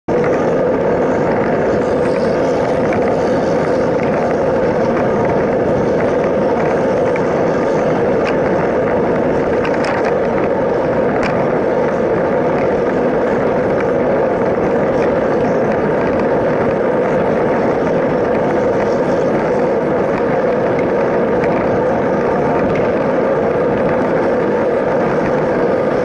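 Steady rush of wind over the microphone and tyres rolling on pavement while moving along a road shoulder, with a few faint ticks about a third of the way through.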